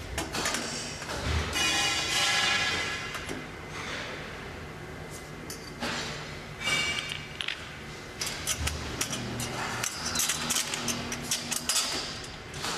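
Metal parts of a table storage trolley clinking and knocking as it is assembled, in a string of irregular sharp knocks, some with a ringing tone.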